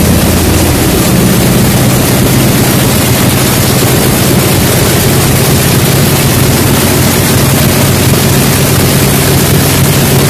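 Radial aircraft engine running at speed on a test stand, turning its propeller: a loud, steady engine and propeller noise with a deep hum underneath.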